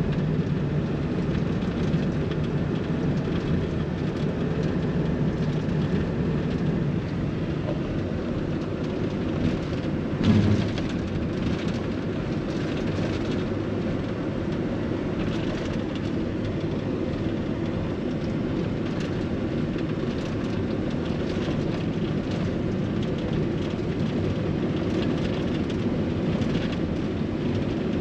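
Steady road and engine noise heard from inside a moving vehicle's cab at highway speed, with a single brief thump about ten seconds in.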